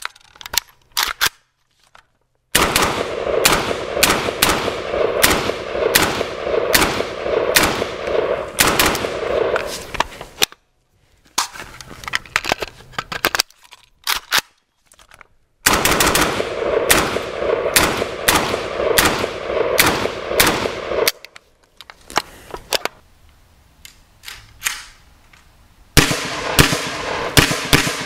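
Suppressed AK-104 rifle in 7.62x39mm firing: a few single shots, then two long strings of rapid shots about three a second, with scattered shots between them. Near the end comes another string of shots in an indoor range, with a ringing echo after each.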